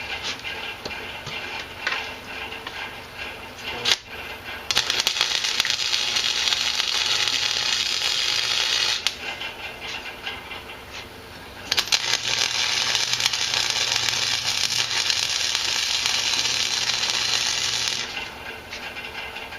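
Two long runs of arc welding on horseshoe steel, a steady crackling hiss of about four and six seconds, with light metal clinks from handling the pieces before, between and after them. A fan runs underneath.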